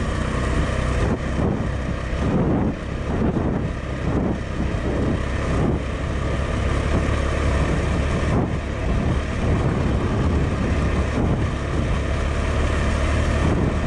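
KTM 390 Adventure's single-cylinder engine running on the move, with wind noise on the microphone. The engine note rises and falls several times in the first few seconds, then holds steadier.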